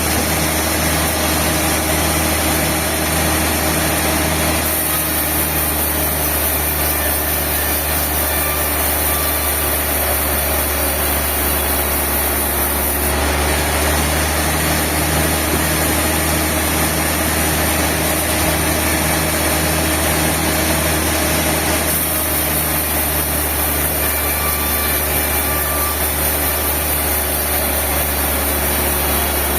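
Steady hum of sawmill machinery running, with an even hiss in the highs that changes abruptly a few times.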